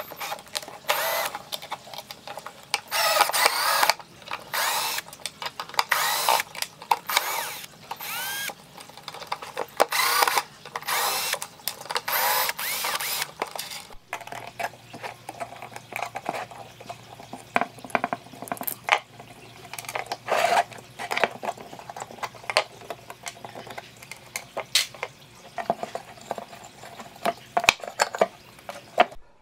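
A power tool working on metal in repeated short bursts of scraping, part of restoring an old amplifier. From about halfway a steady low hum runs under lighter scraping and clicks.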